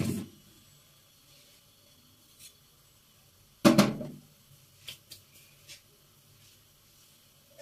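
Steel kitchen pots being handled: a dull knock at the start, a louder metallic clank with a short ring about three and a half seconds in, then a few light clicks.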